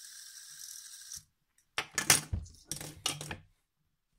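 LED fidget spinner whirring steadily in the hand, the whir cutting off just over a second in. Then a run of hard plastic clacks and rattles as spinners are handled on a table.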